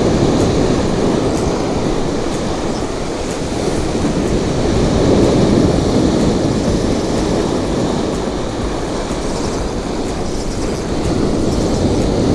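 Strong wind buffeting the action camera's microphone: a loud, rumbling noise that swells and eases in gusts, strongest around the start, about five seconds in and near the end.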